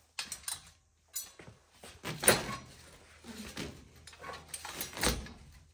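Steel tine weeder toolbar being handled and shifted on a wooden workbench: a series of separate knocks and light metal clatter. The loudest knock comes a little over two seconds in, and a dull thud follows near the end.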